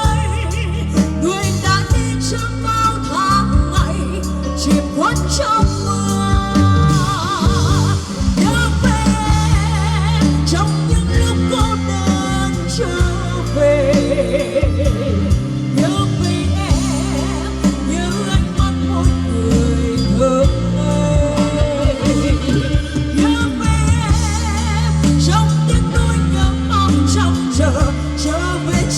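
A pop song performed live: a solo singer holding notes with vibrato over a full backing track with heavy bass, played through a PA sound system.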